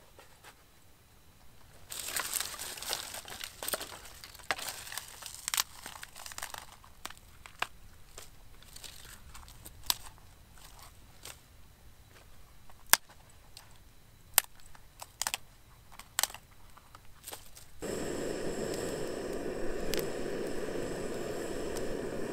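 Crinkling and rustling of handling, then scattered sharp snaps and knocks as dry sticks are laid for a campfire. Near the end a handheld gas torch hisses steadily as it lights the kindling.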